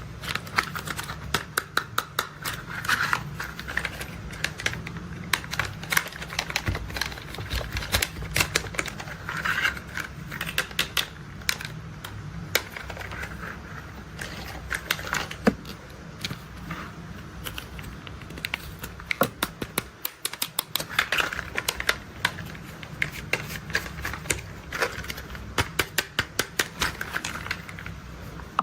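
Plastic toy construction vehicles being handled and worked: runs of sharp clicks and clacks, some in quick rattling series like a ratchet, over a low steady hum.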